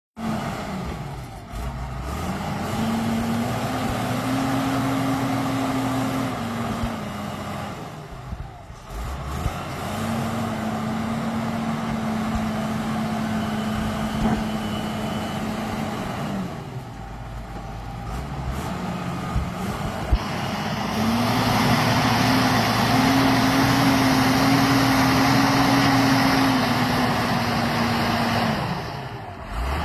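Tractor diesel engine running, its revs rising, holding steady and then dropping away in three long stretches with short lulls between. The last stretch is the loudest and rougher.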